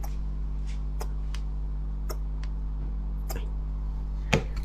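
Plastic squeeze bottle of sauce being squeezed over beef marrow bones: scattered soft clicks and sputters, with a sharper knock about four seconds in, over a steady low electrical hum.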